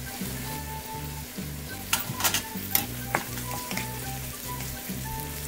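Chopped onions frying in oil sizzle as tomato pieces go into the pan and are stirred with a wooden spatula, with a few sharp clacks of stirring about two to three seconds in. Soft background music plays underneath.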